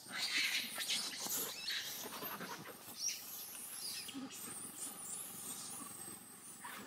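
Young macaques squeaking and squealing in short high-pitched cries while scrambling over dry leaf litter, the leaves rustling under them. The cries are loudest about half a second in.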